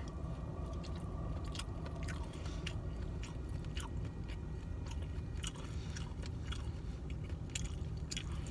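A person chewing a mouthful of camel meat and rice close to the microphone, with many small wet mouth clicks over a steady low hum.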